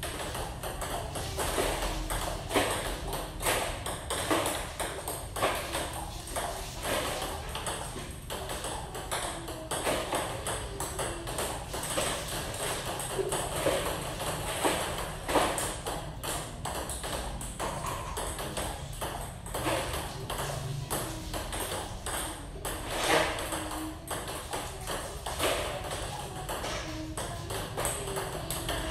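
Table tennis practice rally: a ping-pong ball is hit back and forth, giving a continual run of quick, sharp clicks as it strikes the bats and bounces on the table.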